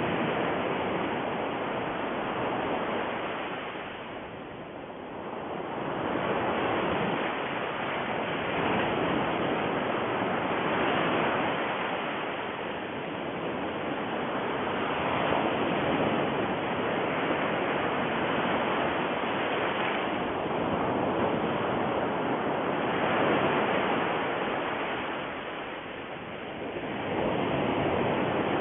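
A steady rushing noise, like surf, swelling and fading every few seconds.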